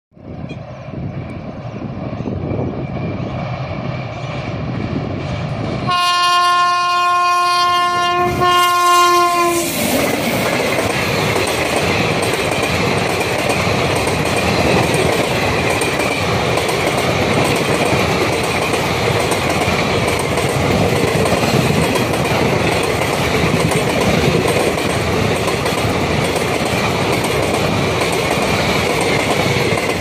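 Passenger train hauled by an Indian Railways WAP-series electric locomotive approaching at speed. About six seconds in it sounds its air horn in two blasts, a long one then a short one. The coaches then rush past with steady, loud wheel-on-rail noise.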